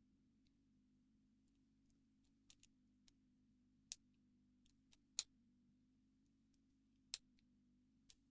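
Faint, irregular clicks of lock picks working the pins inside an Abus 76/40 LOTO padlock fitted with spool security pins, about eight sharp ticks scattered through, the loudest about five and seven seconds in. A faint steady low hum sits underneath.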